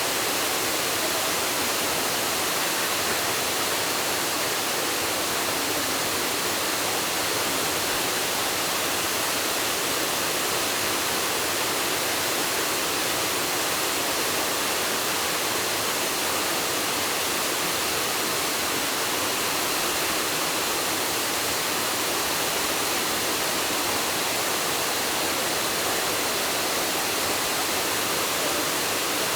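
Waterfall pouring: a steady, unbroken rush of falling water, heard close and fairly loud.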